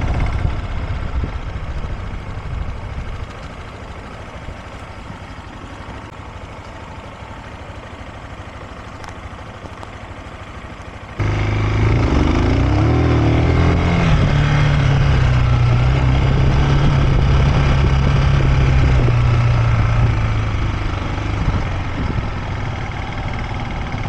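A vehicle on the move: a steady rushing noise that eases off, then, after an abrupt cut about 11 seconds in, a louder engine with a steady low hum that fades near the end.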